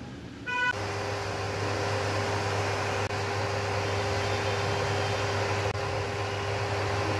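Induction cooktop gives a short electronic beep about half a second in, then runs with a steady electrical hum and cooling-fan noise while heating a pot.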